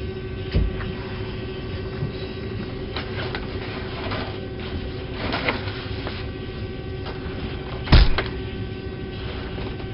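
A large cardboard box being shoved into an aircraft overhead bin, with knocks and rustling, then a hard, dull thump about eight seconds in as the bin door is pushed against it, over a steady hum.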